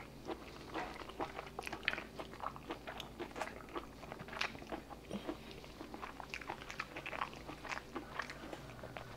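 Close-up chewing of raw spot prawn meat: a steady run of small clicks and crunches from the mouth.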